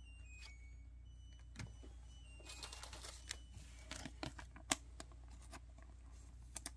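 Glossy chrome baseball cards being handled by hand: light ticks and rustles as the cards slide over and tap against one another, with one sharper click about two-thirds through, over a faint low hum.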